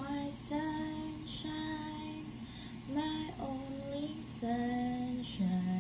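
A voice singing a tune in long held notes with short breaks between them, without clear words.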